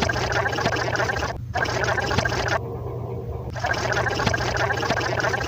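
A watery, gurgling noise like running liquid, repeating as a loop about every four seconds, with a brief drop-out about one and a half seconds in and another near the end.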